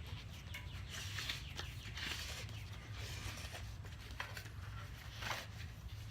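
Bicycle inner tube being pulled out of the tyre, with rubber rubbing and scraping against the tyre and rim in several short bursts.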